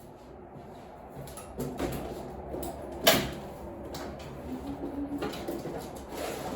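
Scattered clicks and knocks over a low steady rumble, with one sharp thump about three seconds in.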